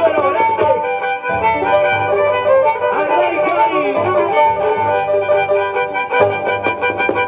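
Violins playing a lively Andean folk tune over a regular low bass pulse.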